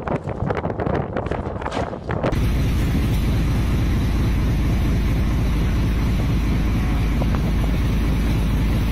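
Irregular cracking and knocking as a container ship's bow grinds into a collapsed steel pier walkway. About two seconds in, this gives way suddenly to steady wind buffeting the microphone, a heavy low rumble.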